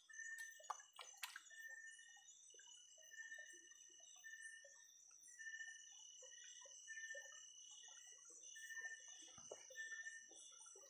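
Faint night chorus of calling creatures: a steady high trill with a short chirping note repeating somewhat faster than once a second, over small splashes and trickles of shallow river water stirred by hand.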